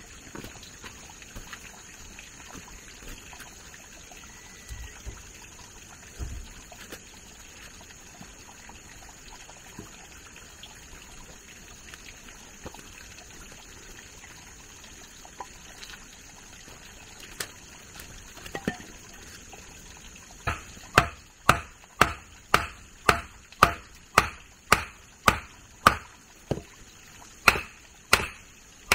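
A tool chopping in a steady run of sharp strikes, about two a second, starting about twenty seconds in. Before that there is only a faint steady hiss with a few soft knocks.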